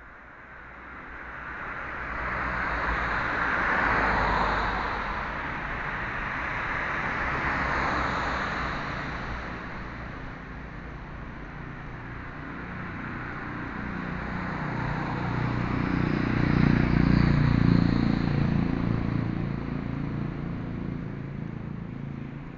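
Road traffic going by: two vehicles pass with a rising and fading tyre swish about four and eight seconds in, then a louder one with a low engine rumble swells past near the end.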